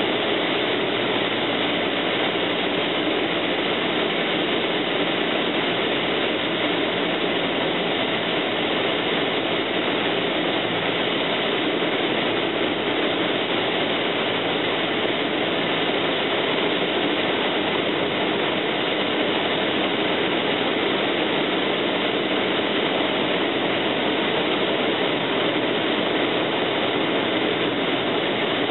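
Cessna 172M's four-cylinder Lycoming O-320 engine and propeller running steadily on approach, heard inside the cockpit as an even drone.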